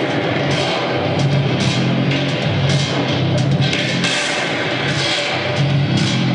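Industrial noise music: metal played through piezo contact microphones, layered with live electronics, in a dense, loud, continuous texture. A low pulse swells about once a second under scattered bright, clattering bursts.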